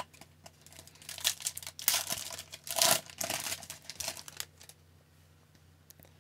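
Foil wrapper of an Upper Deck hockey card pack crinkling and tearing as it is pulled from the box and ripped open, in a run of irregular crackles with the loudest rip about three seconds in.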